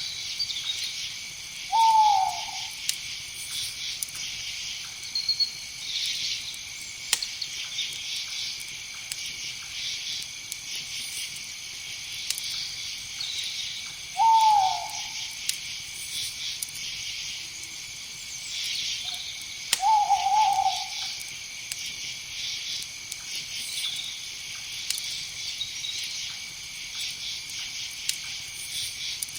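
An owl hooting three times, short calls several seconds apart, the first two falling in pitch, over a steady chorus of crickets and other night insects.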